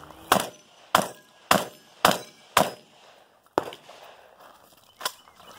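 Seven gunshots from a shoulder-fired long gun during a timed course of fire: five in quick succession about half a second apart, then two slower shots about a second and a half apart.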